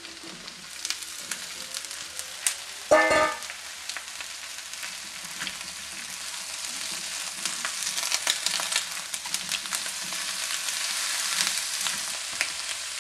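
Cut eggplant sizzling and frying in hot oil with onions in a wok as it is stirred with a spatula, with small scrapes against the pan. A short metallic clang about three seconds in.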